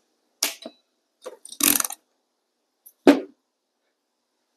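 Ratcheting wire crimper crimping a heat-shrink butt connector: a few ratchet clicks, then a louder clattering snap near two seconds in as the jaws release at full squeeze. About a second later comes a single knock as the crimper is set down on the bench.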